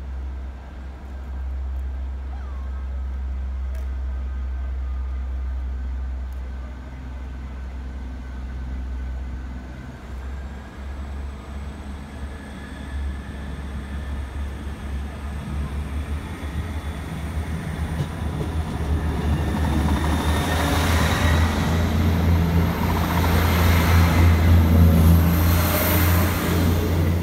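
Diesel multiple unit pulling away under power: its engines drone low and steady while a faint high whine rises slowly in pitch as it accelerates. The sound builds steadily and is loudest near the end as the train passes close by.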